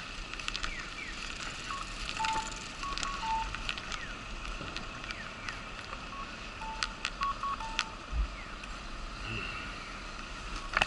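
Japanese audible pedestrian crossing signal sounding its electronic bird-call tones while the walk light is green: short falling chirps alternating with two-note cuckoo-like calls, repeating throughout. Scattered sharp clicks and street background run underneath.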